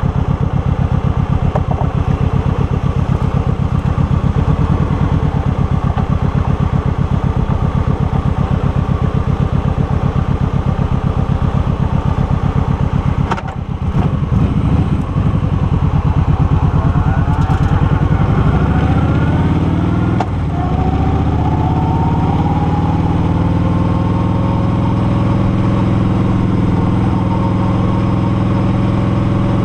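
Motorcycle engine idling with an even pulsing beat, then pulling away a little under halfway in and revving up through the gear. After a shift about two-thirds in it settles into a steady cruise.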